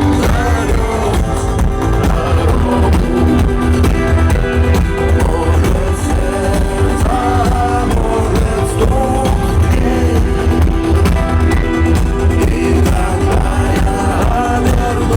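Loud electronic dance music with a strong bass line.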